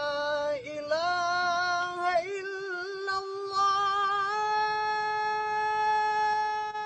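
A single voice chanting the Islamic call to prayer (adhan) line 'ashhadu an la ilaha illallah' in long, drawn-out notes with ornamented turns. The pitch rises in steps to a final note held steady for several seconds.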